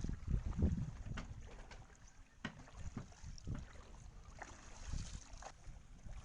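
Wind buffeting the microphone in an uneven low rumble, with scattered light knocks and clicks.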